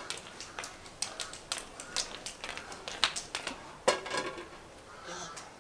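A run of irregular light clicks and taps, several a second, easing off in the last second or so.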